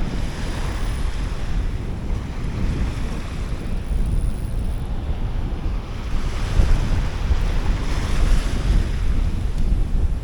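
Wind buffeting the microphone with a heavy low rumble, over surf washing up a beach. The wash swells about half a second in and again from about six seconds in.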